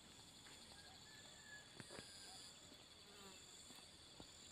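Faint outdoor background of insects, a steady high-pitched buzz, with a few faint ticks.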